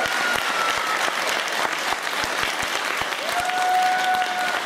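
Audience applauding, steady clapping throughout, with a couple of held high tones sounding over it twice.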